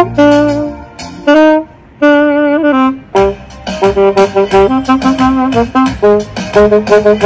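Saxophone playing a jazzy melody. Phrases of separate notes, a short gap about two seconds in, then a brisk run of short notes.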